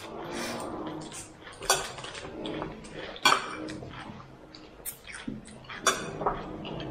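Dishes and eating utensils clinking during a meal: a handful of sharp clinks, with quieter handling noise between them.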